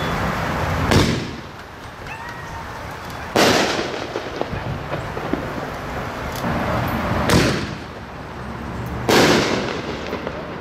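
Brothers Pyrotechnics American Chief mortar ball shells firing and bursting: four loud, sharp bangs a few seconds apart, with fizzing and crackle between them.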